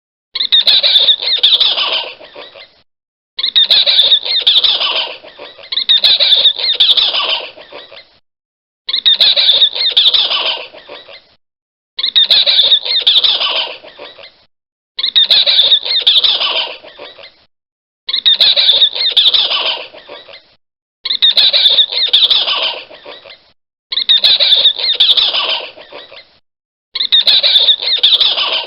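Spider monkey screaming, a loud, high-pitched call repeated about every three seconds, each scream lasting about two seconds and fading out, with silence between.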